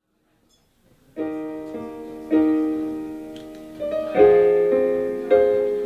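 Yamaha CP stage piano played solo, starting about a second in: a slow run of struck chords, a new one roughly every second, each left to ring and fade.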